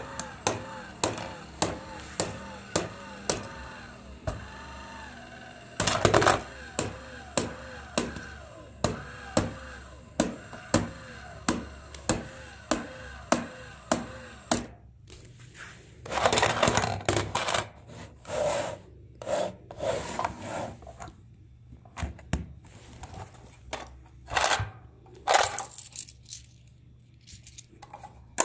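A plastic football coin-bank toy's motorised kicker clicking over and over, about twice a second, for the first half. Then irregular rattling of coins and plastic as the bank is handled and its coin compartment is opened.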